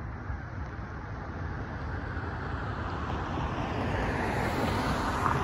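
A car approaching on the road, its tyre and engine noise growing steadily louder over a steady low rumble.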